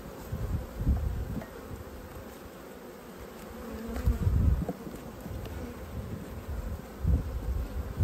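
Honeybees buzzing around an open Langstroth hive, a steady hum, with a couple of low bumps about four and seven seconds in.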